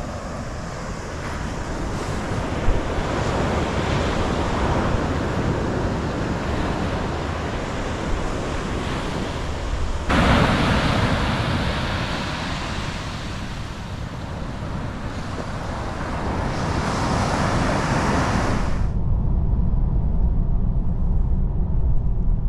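Wind on the microphone and surf on a beach, changing abruptly about ten seconds in. Near the end it cuts suddenly to the low rumble of road noise inside a moving car.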